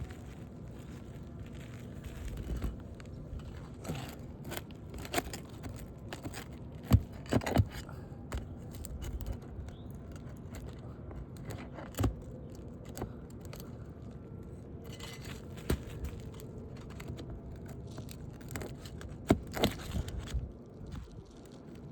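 Scraping and prying under brittle asphalt roof shingles to work loose the staples that hold them to the decking, with scattered sharp clicks and knocks.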